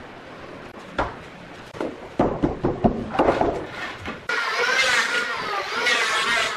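A few hollow knocks as a hardwood stair board is handled and set against the steps. About four seconds in, an electric hand planer starts cutting along a hardwood board, a loud steady whine that wavers in pitch as it shaves the wood.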